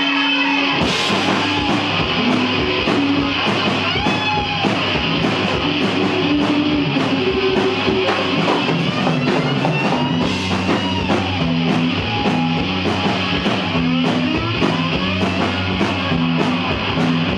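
Live rock band playing a song's instrumental intro on guitar and drum kit, the full band coming in about a second in after a held guitar note.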